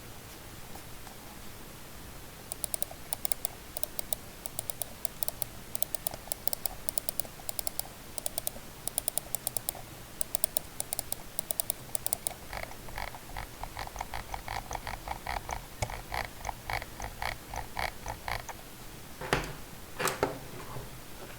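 Wired computer mouse buttons clicked rapidly over and over, in two long runs of different character: a sharp, bright clicking first, then a duller, fuller clicking. Two louder knocks come near the end.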